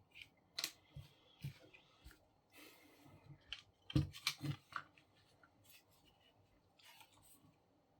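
Plastic parts of a DYMO LabelManager 100 label maker's casing being handled: scattered light clicks and knocks with a brief scrape, with the loudest cluster of knocks about four seconds in.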